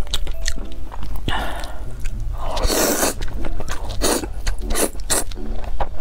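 Close-miked mouth sounds of eating spicy instant noodles: wet chewing and lip smacks as many short clicks, with two longer slurps about a second and three seconds in.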